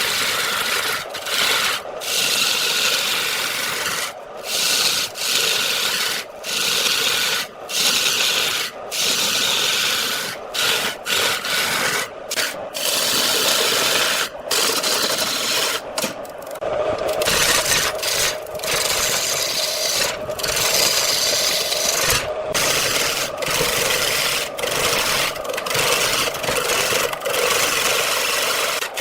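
A turning tool scraping wood spinning on a lathe: a steady rasping broken by short gaps every second or so.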